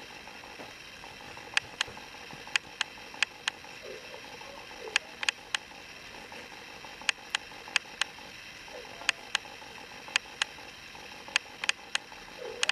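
Sharp clicks, mostly in quick pairs, repeating irregularly about once a second over a low steady background hum.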